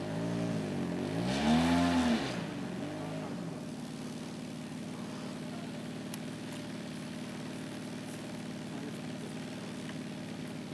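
Model tow plane's engine revved up and down three times, its pitch rising and falling, the middle rev the loudest, then settling into a steady idle.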